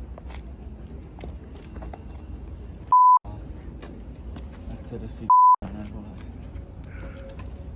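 Two short beeps of a single pure tone, about three seconds in and again about two seconds later, each laid into a gap where all other sound is cut out: edited-in censor bleeps. Low street background with faint clicks runs between them.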